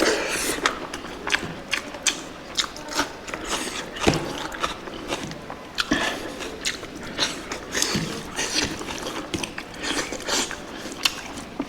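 Close-miked chewing of food, heard as irregular crunches and wet mouth clicks several times a second.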